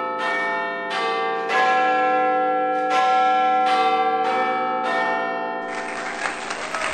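A peal of bells rung one after another, a new strike about every 0.7 seconds with each ringing on under the next. Near the end the bells give way to a burst of applause-like noise.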